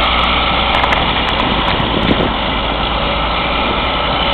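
Tractor-trailer's diesel engine running steadily under load while its drive tires slip and spin in deep snow, losing traction.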